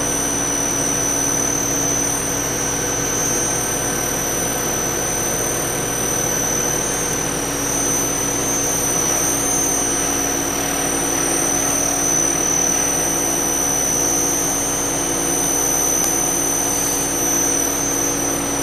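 Diamond America TF200 Twinfeed extruder running steadily while extruding silicone through a tube die: a constant machine hum with a steady high-pitched whine.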